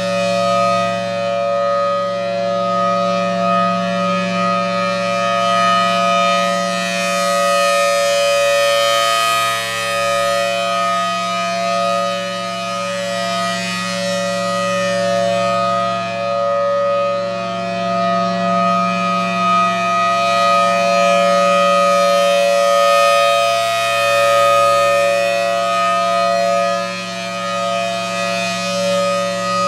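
Federal Signal Thunderbolt 1000AT rotating warning siren sounding a steady alert tone, a held chord from its 5/6 port-ratio rotor. It is loud, and it swells and fades slowly as the rotating horn sweeps toward and away.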